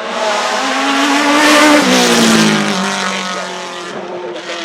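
Maserati MC12 Corsa's naturally aspirated V12 passing at speed under hard acceleration. Its pitch climbs as it approaches, peaks a little under two seconds in, then drops as it goes by and fades away.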